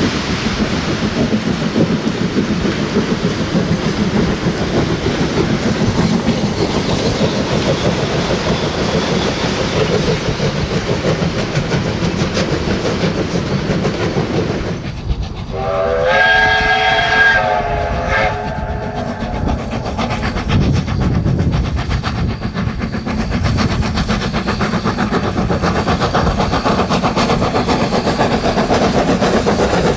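A steam locomotive working hard as it passes with its train of carriages, with exhaust and wheels clattering over the rails. About halfway through, the steam whistle sounds for about three seconds, several notes at once.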